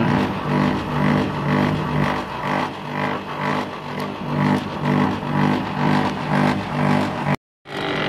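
Outdoor unit of a Panasonic 2.5 PK R22 split air conditioner running, a low compressor-and-fan hum that pulses about twice a second. Its large suction pipe is iced over, which the technician takes for a refrigerant blockage and abnormal refrigerant circulation. The hum breaks off for a moment near the end.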